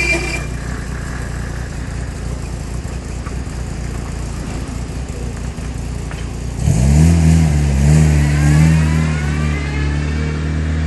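Scania V8 diesel truck engine running at a low steady speed, then about two-thirds of the way through it revs up sharply, gets louder and holds at the higher speed, with a faint rising whine over it.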